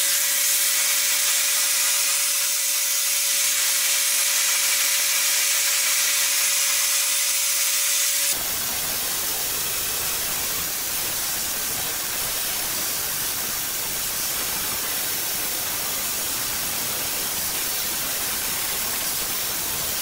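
Dyson hair dryer blowing: a steady, airy hiss with a faint steady whine from its motor. About eight seconds in, the sound changes abruptly to a fuller, deeper rush of air and the whine disappears.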